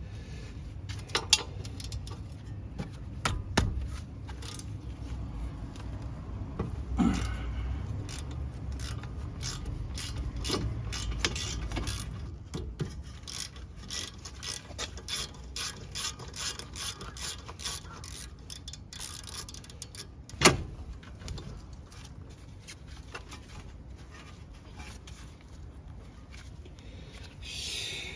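Hand-tool work on a car: a ratchet wrench clicking in short runs, with metal parts and tools clinking now and then. A single sharp knock about twenty seconds in is the loudest sound.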